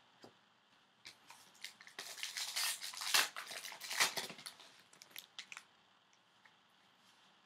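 A trading-card pack's wrapper being torn open and crinkled by hand, with a dense crinkling run in the middle. Light clicks of cards being handled come before and after it.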